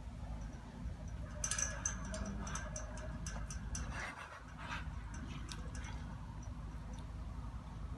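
Twigs and leaves of a tree branch crackling and snapping as a bully-breed puppy grips and tugs it. The crackles come in a busy run about one and a half to two seconds in, then scatter until about five and a half seconds. A steady low rumble runs underneath.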